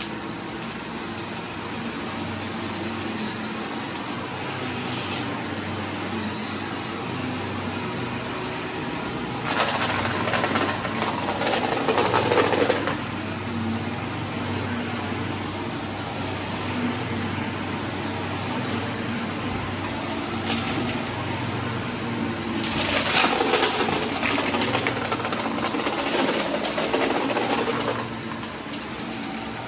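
Vacuum cleaner running steadily with a high whine over its motor hum. Twice it turns louder and rougher for a few seconds at a time, as it sucks up scattered debris.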